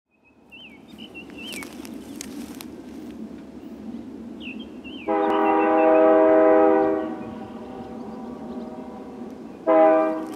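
Air horn of Canadian Pacific 6223, an ex-Soo Line SD60 diesel locomotive, sounding as it approaches: one long chord-like blast of about two seconds about halfway through, then a short blast near the end.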